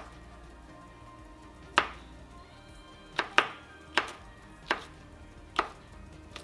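Kitchen knife chopping vegetables on a cutting board: about seven sharp, unevenly spaced knocks, two of them in quick succession around the middle.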